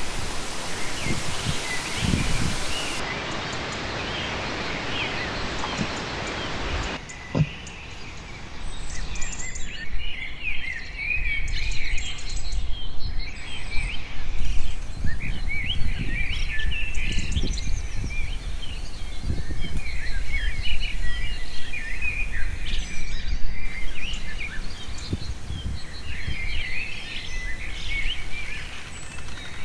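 Many small birds chirping and calling over steady outdoor background noise, which shifts abruptly several times. A hiss fills the first seven seconds.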